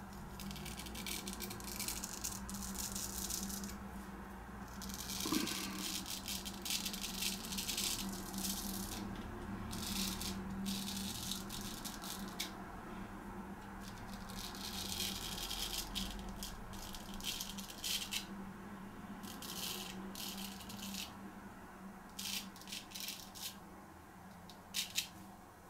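Straight razor scraping through lathered stubble in short, irregular strokes, with a steady low hum underneath.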